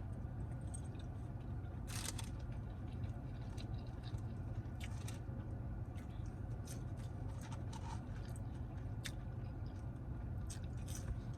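Close-up chewing of a mouthful of burger: soft wet mouth clicks and squishes at irregular moments, over a steady low hum.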